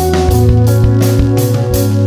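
Background music with a drum kit keeping a steady beat under held instrumental tones.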